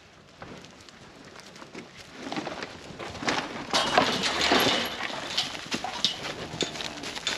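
Herd of cattle crowding in to the feed, hooves clattering and shuffling, a dense crackle of knocks that starts about two seconds in and swells.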